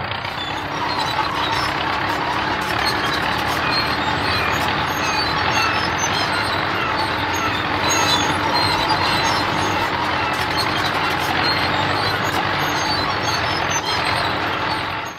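Cartoon sound effect of a road roller's engine running steadily, cutting off abruptly at the end.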